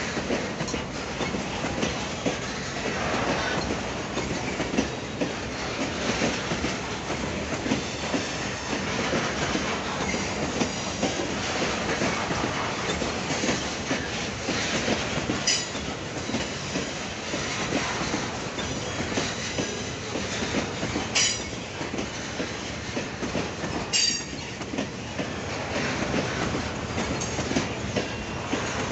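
Loaded coal hopper cars of a long freight train rolling past, their steel wheels clicking and rumbling steadily over the rail joints. A few short, high wheel squeals cut through in the second half.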